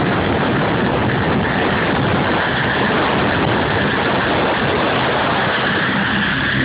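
Royal Air Force Merlin helicopter running with its rotors turning, a loud steady rush of rotor downwash buffeting the phone's microphone over a steady high engine whine.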